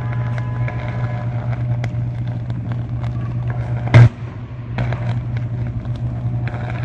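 Short-circuiting power line arcing on a utility pole: a steady low hum with scattered crackling snaps, and one loud sharp bang about four seconds in.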